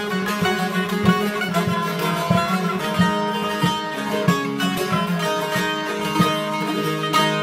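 Two bağlamas, Turkish long-necked saz lutes, playing an instrumental passage of a Turkish folk tune together, with fast, steady plucked notes and no singing.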